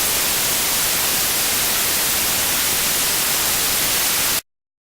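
Steady hiss of white-noise static, like an untuned television, that cuts off abruptly about four and a half seconds in.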